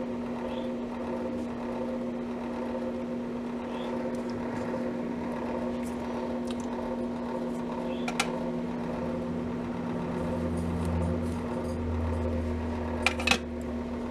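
A steady hum runs throughout. There is one sharp click about eight seconds in and two quick clicks near the end, with a low rumble coming in for the last few seconds.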